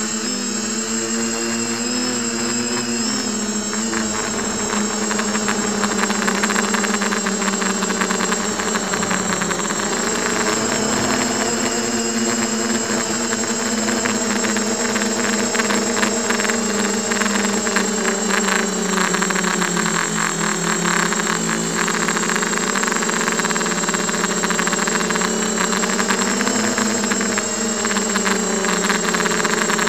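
Emax 1806 brushless motors and HQ propellers of a Diatone 250 FPV quadcopter buzzing steadily in flight, heard from the onboard camera, the pitch drifting up and down as the throttle changes.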